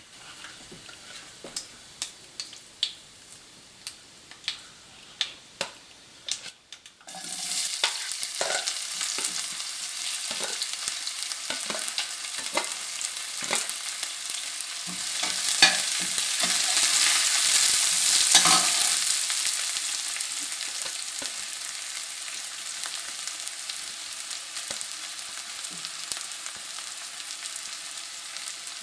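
A few sharp clicks from the hot oil pan, then about seven seconds in a sudden loud sizzle as ingredients are dropped into hot oil. They fry steadily with the knock and scrape of a stirring spoon, the sizzle swelling in the middle and then easing.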